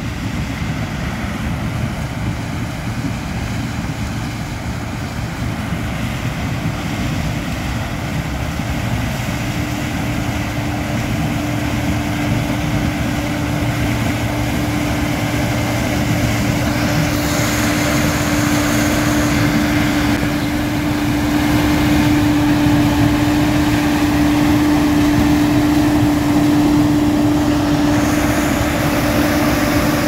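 Massey Ferguson combine harvester running while it cuts corn, its engine and machinery droning steadily. A steady whine comes in about ten seconds in, and the whole sound grows louder as the combine draws near.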